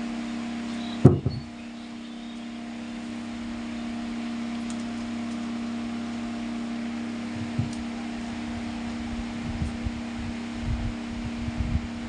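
Homemade table fan's small 12 V DC motor running with a steady hum, with a sharp knock about a second in and irregular low thumps in the second half.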